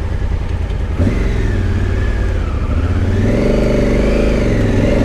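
Adventure motorcycle engine revving under throttle on a rough off-road climb. The revs pick up about a second in, then swell and sag.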